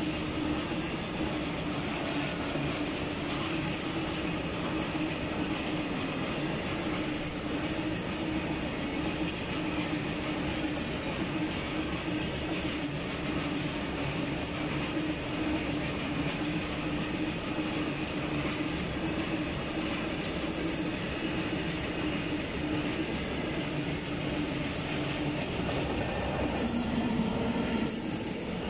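Loaded freight wagons of a long goods train rolling past at close range: a steady rumble and clatter of wheels on the rails, with a steady droning tone running underneath.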